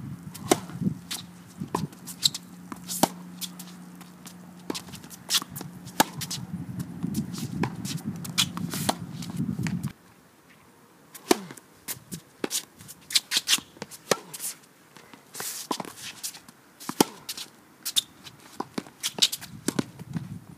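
Tennis rally on a hard court: sharp racket-on-ball hits and ball bounces at irregular intervals, with shoe scuffs and footsteps between them. A low steady hum runs under the first half and cuts off suddenly about ten seconds in.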